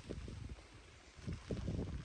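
Strong wind buffeting the microphone in irregular low gusts, over a faint steady hiss of heavy rain.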